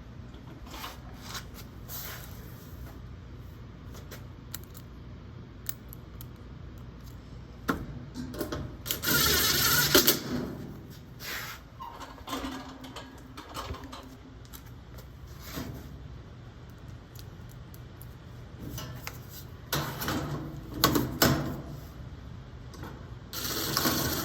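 Power impact driver running screws in two short bursts, about nine seconds in and near the end, with clicks and knocks of tools and panel handling between.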